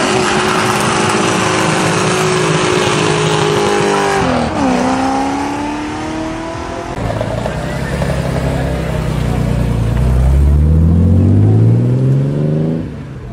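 BMW E30 saloon engine revving hard as it launches with the rear tyres spinning, over a loud hiss of tyre noise. About four seconds in there is an upshift and the revs climb again. Later a BMW E46 coupe accelerates away, its engine note rising steadily until it drops off near the end.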